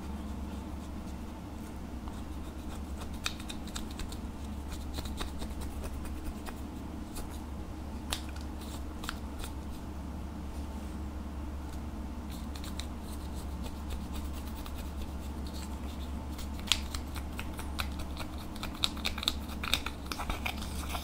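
Plastic spatula scraping and breaking up red pressed-powder eyeshadow in its compact: scattered small scratchy clicks that come thicker near the end, over a steady low hum.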